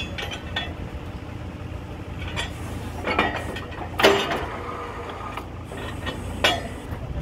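Truck-mounted borewell drilling rig running with a steady low hum, over which steel drill rods and tools clink and clank at the drill head. The loudest clank comes about four seconds in, and another sharp one near the end.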